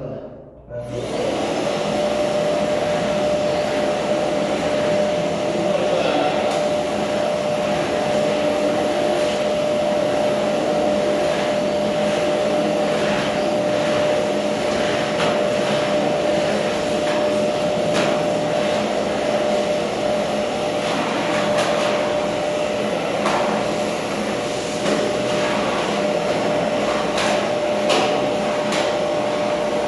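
Vacuum cleaner switching on about a second in, then running steadily with a constant whine, with occasional light clicks as it cleans.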